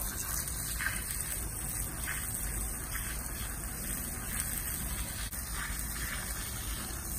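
A thin jet of water from a small jetted hose tip sprays steadily against the corner of a sliding door's threshold and the deck beside it. This is a water test to find where rain gets in under the threshold.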